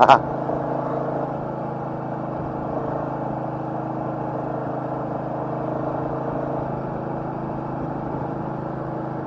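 Royal Enfield Meteor 350's single-cylinder engine running at a steady, even note while riding, with no clear revving up or down.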